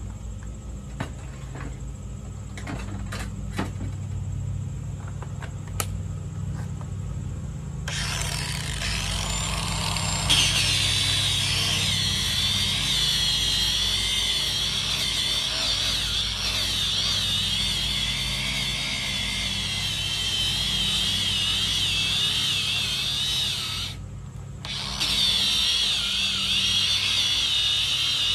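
Cordless disc grinder starting up about eight seconds in and sanding down the foam of a 3D archery target, its whine wavering as it is pressed into the foam. It cuts out briefly about two-thirds of the way through, then starts again.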